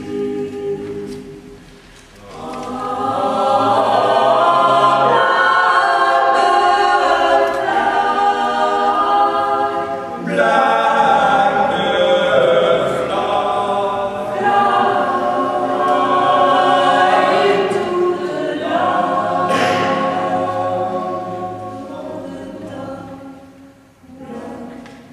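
Eight-voice mixed a cappella ensemble singing in close harmony. The voices drop to a lull about two seconds in, swell back up, and fade down near the end.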